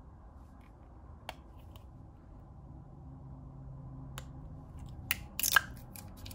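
Small handling sounds from a roll of washi tape and its plastic wrapping: a few soft, separate clicks, then a short burst of crackling near the end as the wrapper is picked at and opened.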